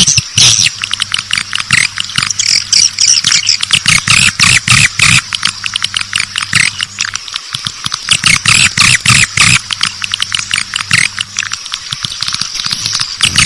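Swiftlet calls from a swiftlet-house lure recording: a dense, unbroken stream of rapid high chirps and twitters. A steady low hum runs underneath.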